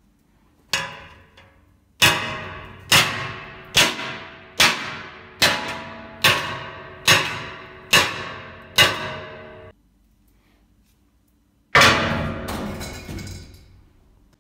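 Metal pipe struck repeatedly onto a tempered glass panel: about ten hard, evenly spaced strikes, a little under a second apart, each with a metallic ring, and after a short pause one more heavy strike that rings for a couple of seconds. There is no sound of shattering; the tempered glass holds.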